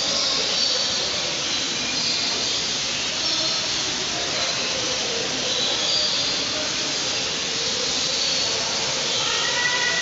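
Steady rushing hiss of aviary background noise, with short, faint, high bird chirps now and then.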